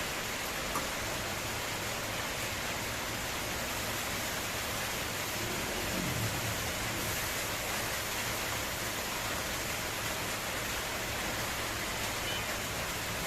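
Egg frying in hot oil in a pan: a steady sizzle.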